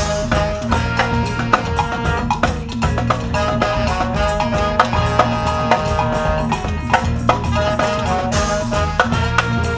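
Brass parade band playing an upbeat tune: saxophones and trumpet hold and repeat short melodic lines over electric bass and a steady pattern of sharp drum and rim strokes.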